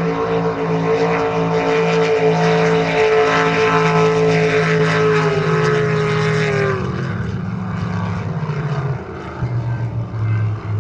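Racing boats' engines running hard at speed, a loud steady note that drops in pitch about six to seven seconds in and carries on lower.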